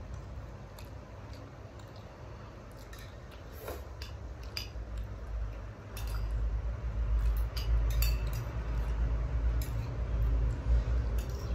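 Metal spoons clinking and scraping against a ceramic plate and bowl as two people eat, in scattered light clicks. A loud low rumble comes in about six seconds in and stays.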